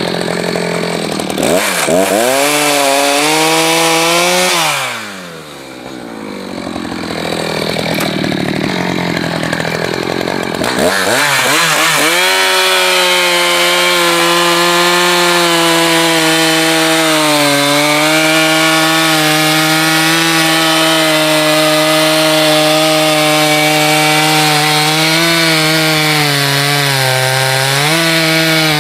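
Echo two-stroke chainsaw revving. About five seconds in it drops back to a warbling idle, then near the eleven-second mark it goes back to full throttle and holds there, its pitch sagging slightly at times as it cuts through firewood, before easing off near the end.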